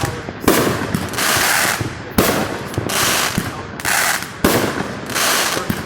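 Fireworks going off: a sharp bang every second or two, each trailing into a second or so of crackling hiss that fades away.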